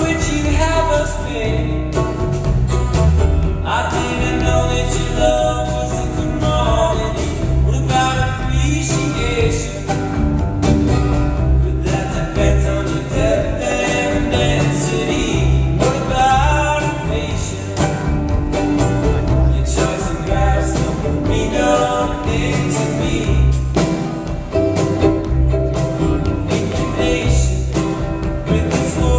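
Live acoustic performance of a song: a male voice singing over acoustic string instruments and a steady bass pulse.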